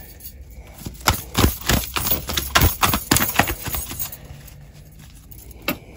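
Tarot cards being shuffled and handled on a cloth-covered table: a run of quick, irregular clicks and slaps starting about a second in and stopping about four seconds in.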